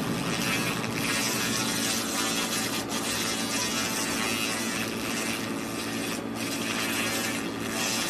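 Laser cleaner ablating rust off metal: a steady, dense hiss, with a machine hum underneath.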